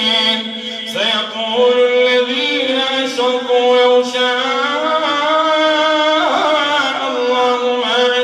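A man chanting the Quran in the melodic recited style (tajweed), into a microphone, with long held notes and slow rises and falls in pitch.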